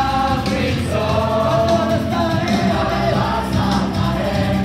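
Live church worship singing: a worship team singing into microphones, many voices together on long held notes.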